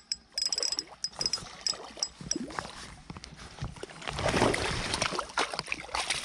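Scattered light clicks and ticks from the spinning rod and reel while a hooked brook trout is played. From about four seconds in, water sloshing and splashing as wader-clad legs step into the shallow stream to net it.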